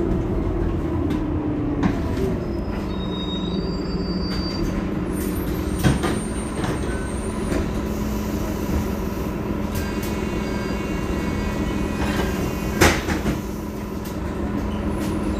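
Heuliez GX 327 city bus standing with its engine idling in a steady low hum. A sharp clack comes about six seconds in and a louder one near the end.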